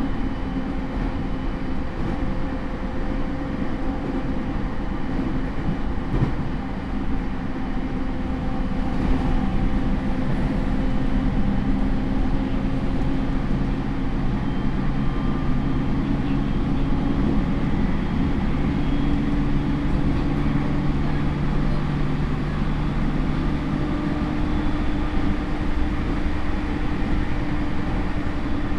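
JR East E231 series electric train running, heard inside a motor car fitted with a Hitachi IGBT inverter: a steady wheel-and-rail rumble with the traction motors' and inverter's humming tones, which shift in pitch partway through.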